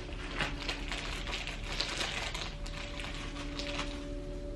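Plastic shopping bag rustling and crinkling in irregular bursts as items are dug out of it.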